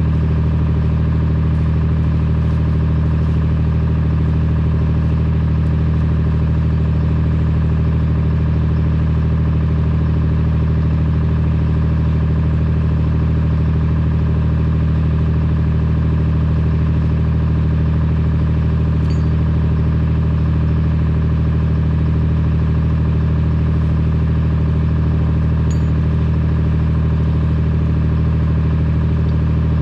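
An engine running at a steady, unchanging speed, with no load changes or cutting sounds.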